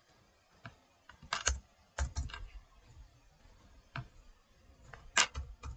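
Computer keyboard keystrokes: a sparse, irregular run of key clicks, with the loudest strokes about one and a half, two and five seconds in.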